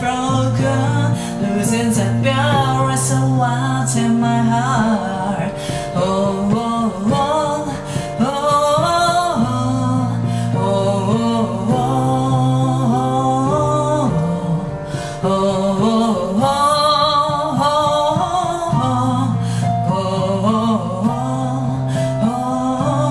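A woman singing a slow ballad, accompanied only by piano playing sustained low chords and broken-chord figures.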